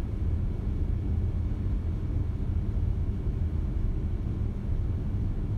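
Steady low background rumble, even throughout, with no distinct clicks, knocks or bubbling.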